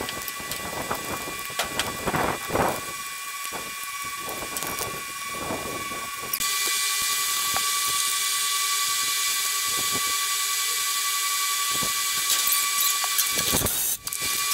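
Several knocks and clanks, then a cordless drill running steadily with a high whine for several seconds, drilling at the rear shock bracket on the steel truck frame. It stops briefly near the end and starts again.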